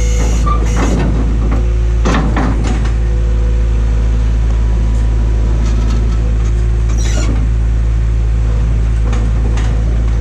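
Vehicle engine running steadily, with several knocks and clanks of handling heavy metal.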